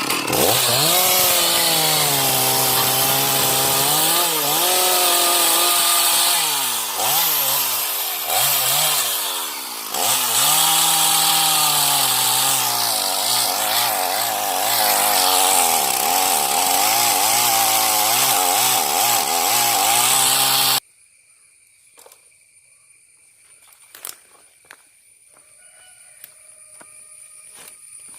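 Two-stroke chainsaw running at high revs while cutting through a mahogany trunk, its engine pitch sagging and recovering several times as the chain bites into the wood. It stops abruptly about three-quarters of the way through.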